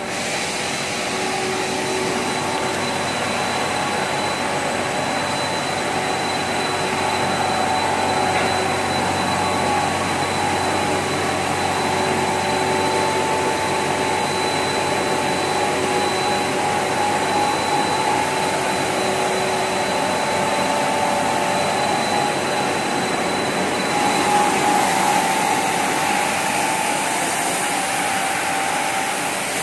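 PVC coil mat production line running: a steady rushing machine noise with faint steady whines from its motors and blowers.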